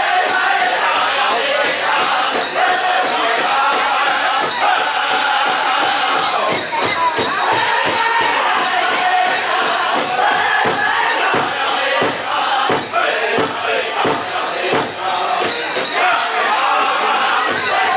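Powwow drum group playing a men's chicken dance song: men singing together in high, strained voices over a steady beat on a big drum, with the jingle of dancers' bells.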